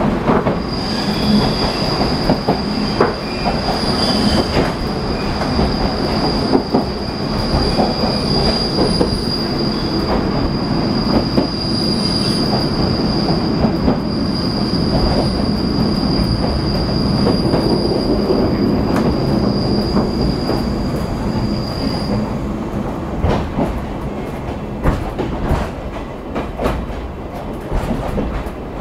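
Vintage passenger coach running, its wheels squealing in one steady high tone that stops about three quarters of the way through, the flange squeal of wheels on a curve. Under it run the rumble of the running gear and the clicks of rail joints.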